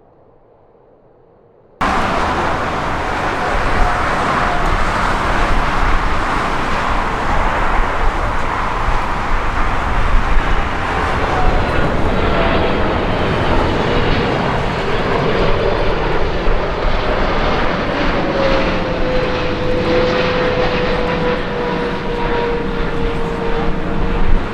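Large jet airliner's engines, loud, cutting in abruptly about two seconds in, with a whining turbine tone that slowly falls in pitch as the aircraft passes.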